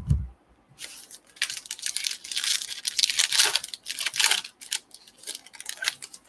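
Crimp-sealed plastic wrapper of a baseball-card pack being torn open and crinkled by hand: a run of crackling tears and rustles starting just under a second in and lasting about five seconds.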